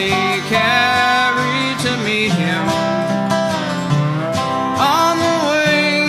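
Instrumental break of an acoustic country gospel tune: a dobro plays the lead with sliding notes over a flat-top acoustic guitar rhythm.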